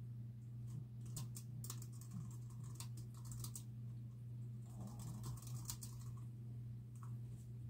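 Typing on a computer keyboard: quick runs of key clicks starting about a second in and again around five seconds in, with a few scattered keystrokes near the end. A steady low hum runs underneath.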